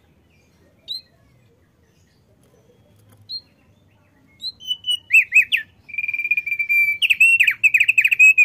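Male thick-billed heleia (opior paruh tebal), a Lesser Sundas white-eye, calling with a single short chirp twice. From about halfway it sings loudly: quick up-and-down whistled notes, a steady trill, then a fast warbling run that stops at the end.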